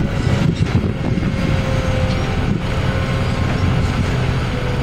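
Diesel engine of a tracked hydraulic excavator running steadily under load as it digs and lifts its bucket, with a faint steady whine above the rumble.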